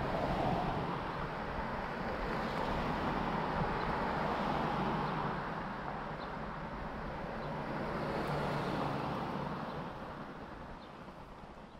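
Road traffic noise, swelling as vehicles pass and fading near the end.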